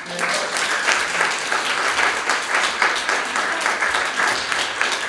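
An audience applauding: many hands clapping steadily together.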